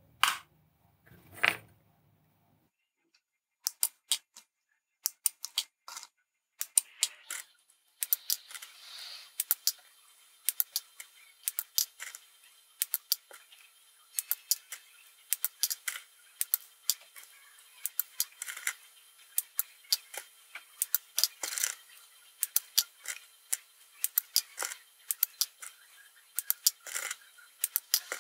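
Small flush cutters snipping the wire leads of LEDs, a string of sharp clicks at irregular spacing, with light clicks of the trimmed LEDs being dropped into a plastic dish. The snips are sparse with a short pause in the first few seconds, then come quickly one after another.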